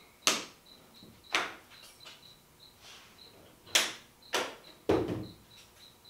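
Flush-mount hood latches and the hood panel being pressed down and snapped shut: five sharp clacks spaced irregularly over a few seconds.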